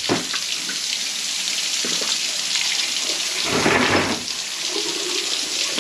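Water spraying and splashing out of the loosened joint between a B&G heating circulator pump's volute and its bearing assembly, a steady hissing gush onto the floor. It is briefly louder about three and a half seconds in. The system water is draining because the bearing assembly's screws have been loosened before the assembly is pulled.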